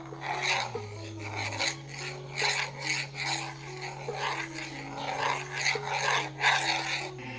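Quiet passage of a song played through a Bluetooth speaker: a low held bass line that changes pitch a few times and soft melody notes, under a rhythmic scratchy, rasping noise texture.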